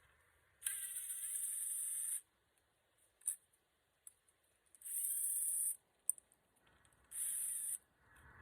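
Power drill running in three short bursts, about a second each, with a couple of sharp clicks in between, typical of driving screws.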